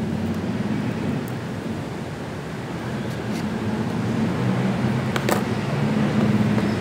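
A cardboard toy box being handled and turned over in the hands, with a couple of light taps or clicks, over a steady low background rumble.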